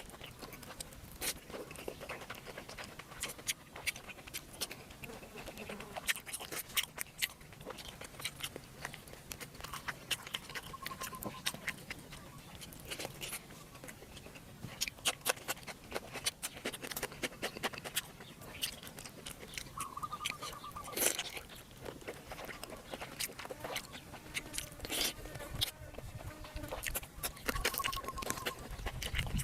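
Close-up chewing and crunching of food, with many sharp mouth clicks and smacks running irregularly throughout. A few brief faint high tones sound around the middle and near the end.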